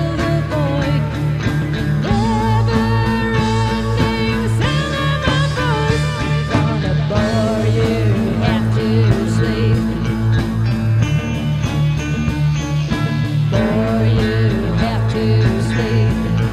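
Rock band music: electric guitars over bass and drums, playing steadily.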